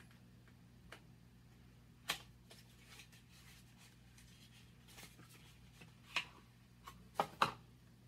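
Quiet handling of an eyeshadow palette and its packaging: a few scattered clicks and rustles, the loudest a close pair near the end.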